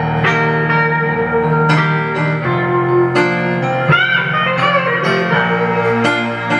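Hollow-body archtop electric guitar playing a single-note lead, with a string bend about four seconds in, over steady backing music with a bass line.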